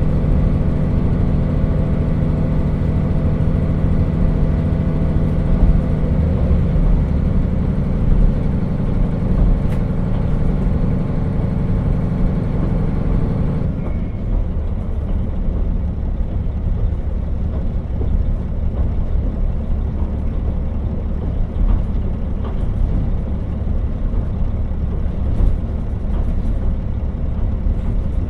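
KiHa 40 diesel railcar under power, its diesel engine running with a steady note that changes about six seconds in. About halfway through the engine note drops away as the throttle is shut, and the railcar coasts with a low rumble of wheels on rail.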